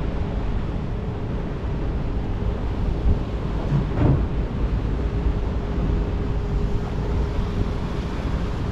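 Ferry engine running steadily, a deep rumble with a faint steady hum, mixed with wind on the microphone. A short knock about four seconds in.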